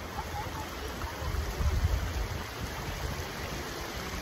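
Shallow stream running over stones: a steady rush of water, with a few low rumbles about a second and a half in.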